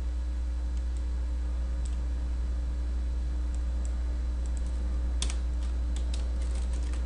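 Computer keyboard typing: scattered single keystrokes, then a quick run of several keystrokes about five seconds in. A steady low electrical hum runs underneath.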